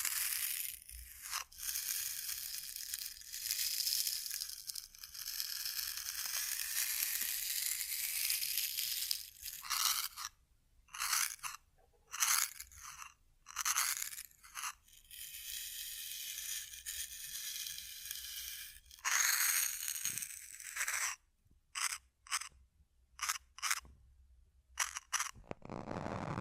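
Close-miked ASMR trigger sounds: hissy, crackly rustling in long strokes of a few seconds and short quick strokes, with brief pauses between.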